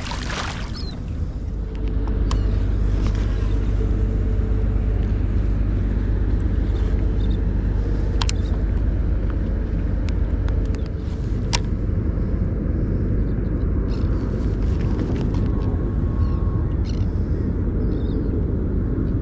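Boat engine running with a steady low rumble, getting louder about two seconds in, with a few short sharp clicks.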